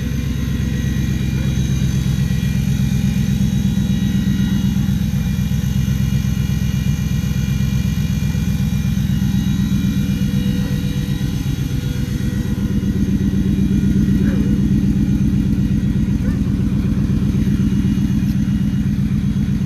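Ford Lightning race truck's V8 engine idling steadily, with a fast, even pulsing beat from the exhaust.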